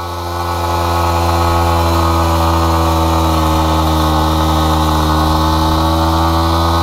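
Yamaha R15 V3's 155 cc single-cylinder engine held at steady high revs while the rear tyre spins in place in wet mud, digging a pit. The engine builds up over about the first second and then holds one even pitch.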